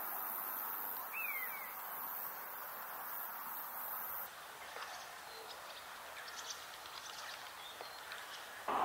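Open countryside ambience with a steady background hiss, a short bird chirp about a second in, and faint, brief bird calls through the second half.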